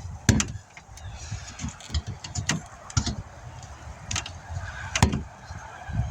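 Rubber tire being worked back onto a wheel rim by hand: a series of sharp knocks and thumps, about five spread over the few seconds, over a low rumble.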